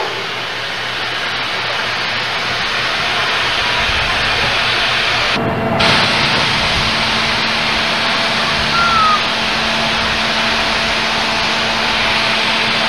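Steam train passing close by: a loud, steady rushing hiss that slowly grows louder. About halfway through, the recording jumps and a low steady hum joins in.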